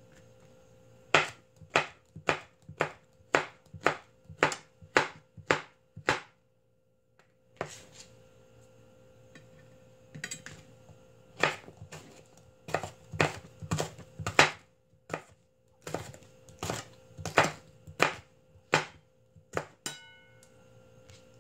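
Chef's knife slicing bell peppers into strips on a cutting board: an even run of sharp chops about two a second, a short pause, then more uneven chopping.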